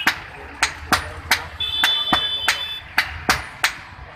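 Hand hammer striking a red-hot iron knife blade on an anvil: sharp metallic strikes at a steady pace of about three a second. A high, steady tone sounds for about a second around the middle.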